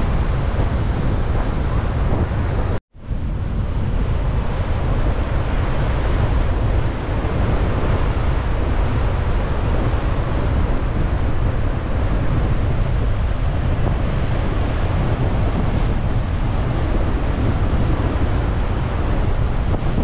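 Strong wind buffeting the microphone over the steady roar of rough sea surf. The sound cuts out completely for a moment just under three seconds in.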